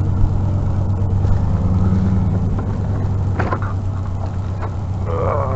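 Pickup truck engine idling steadily with a low hum, and a brief knock about three and a half seconds in.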